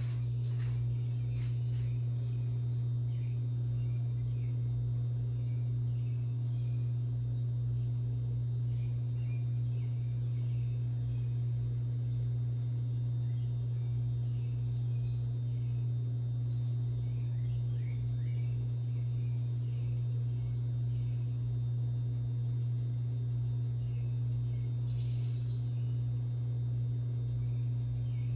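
Hunter Castleton ceiling fan motor running with a steady, even electrical hum, with faint scattered chirps in the background.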